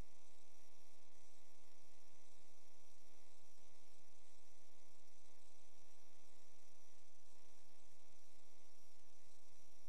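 Steady electrical mains hum, a stack of even tones over a faint static hiss, unchanging throughout: interference on the sewer inspection camera's recording rather than any sound from the drain.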